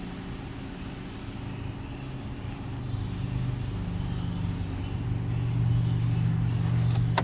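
Steady low hum of an idling engine, growing louder from about three seconds in.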